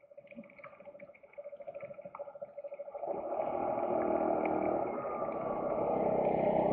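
A large tour coach drives across close in front, its engine and tyres swelling up about three seconds in and staying loud as it passes.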